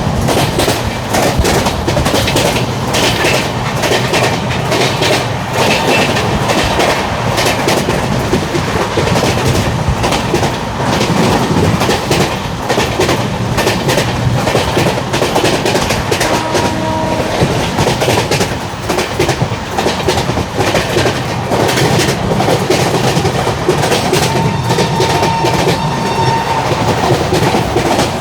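Indian Railways LHB passenger coach running at speed: a steady, dense clatter of wheels over rail joints. A locomotive horn sounds faintly twice, briefly about halfway through and for a couple of seconds near the end.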